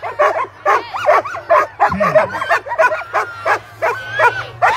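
A team of harnessed sled dogs barking and yipping excitedly, many short calls overlapping several times a second, as handlers hold them back at the start line.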